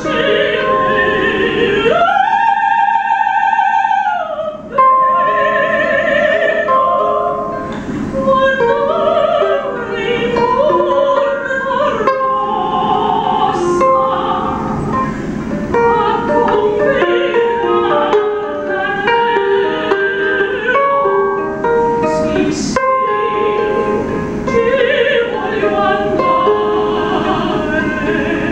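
A woman singing in an operatic voice while strumming a ukulele. About two seconds in she holds one long high note with vibrato, then carries on through a moving melody over the ukulele chords.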